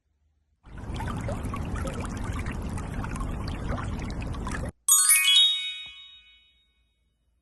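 Liquid pouring steadily for about four seconds, then cutting off abruptly, followed at once by a single bright ding that rings and fades.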